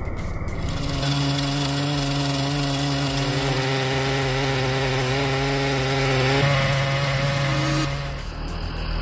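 Big two-stroke chainsaw, a Holzforma G888, running flat out as it cuts through a large oak log. The engine note holds steady and shifts slightly about six seconds in, then gives way to a different engine sound near the end.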